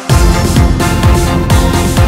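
Electronic dance-style background music. A heavy kick drum and bass drop in just after the start and pound about twice a second.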